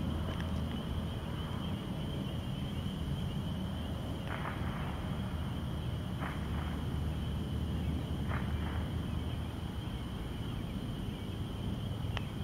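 Outdoor evening ambience: a steady high-pitched chorus, like distant frogs or insects, over a low rumble, with a few short bursts of noise about four, six and eight seconds in.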